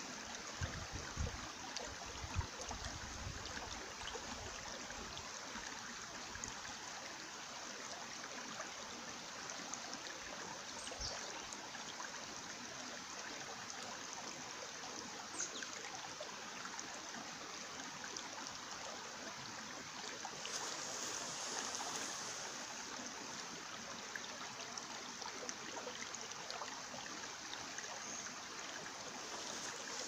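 Shallow mountain stream running over rocks and pebbles: a steady rushing and trickling of water. Some low rumbling in the first few seconds.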